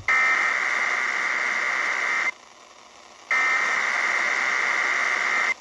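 Emergency Alert System SAME header data bursts: two harsh, buzzy digital bursts of about two seconds each, a second apart, the coded header that starts an EAS tornado drill alert.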